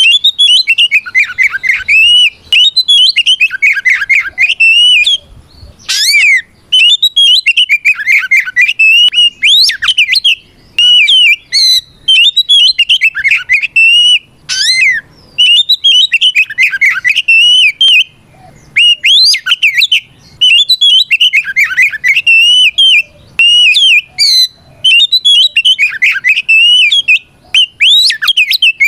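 Oriental magpie-robin (kacer) singing loudly in long phrases of rapid, varied whistles that swoop up and down, broken by short pauses every few seconds. It is the full-voiced challenge song (ngeplong) that the bird uses to call out a rival.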